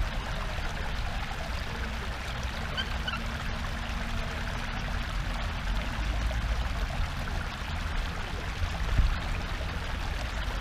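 Steady rushing of water by a park pond, with a low rumble of wind on the microphone and a few short high chirps about three seconds in.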